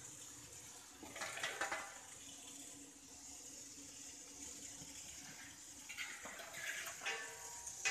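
Milk boiling in a steam-jacketed mawa kettle as it is reduced to khoya, a steady rushing, bubbling hiss. Louder, rougher stretches come about a second in and again near the end while a long paddle stirs the pan.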